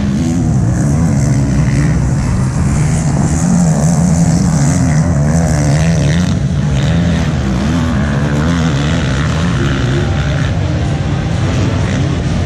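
Several motocross bikes racing around the track out of sight, their engines making a steady drone that rises and falls as the riders throttle on and off.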